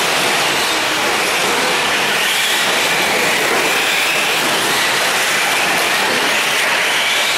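Several electric 4WD short-course RC trucks racing on a dirt track: a steady wash of high-pitched motor whine and tyre noise, the whine rising and falling in pitch as the trucks speed up and slow.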